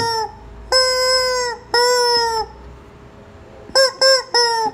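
Rubber chicken toy squeezed, giving two long squawks of almost a second each at a steady pitch, each dropping slightly as it ends, then three short quick squawks near the end.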